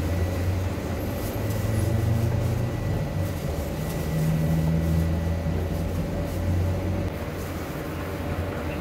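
Steady low mechanical rumble, like a running motor, that swells and eases a little over several seconds, with a faint steady hum above it.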